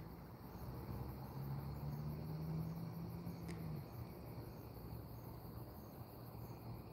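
Faint crickets chirping at an even pace. A low steady hum swells in about a second in and stops just before the four-second mark.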